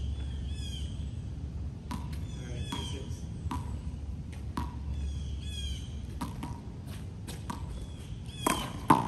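Birds chirping in short, repeated falling calls while a rubber handball bounces on the concrete court about once a second. Near the end the ball is struck by hand and hits the wall in a few loud, sharp smacks.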